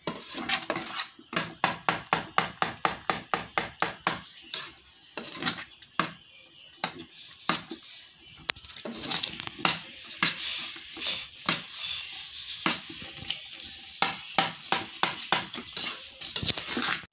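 Metal spoon stirring thick cornstarch pap in a stainless steel pot, knocking and scraping against the pot in quick repeated strokes, several clicks a second. The strokes thin out midway and speed up again near the end. The pap is thickening as it cooks on the fire.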